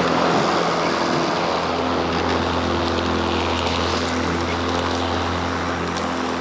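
Battery-powered electric lawn mower running, a steady whir of motor and spinning blade with a constant low hum.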